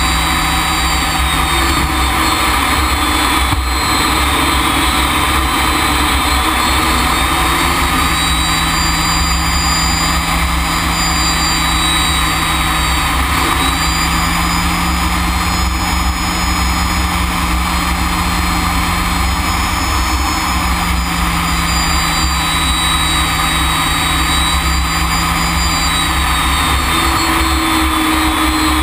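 A BAC Strikemaster's Rolls-Royce Viper turbojet running steadily in flight, heard inside the cockpit: a dense rumble under a high whine. The whine and a low hum shift slightly in pitch a few times.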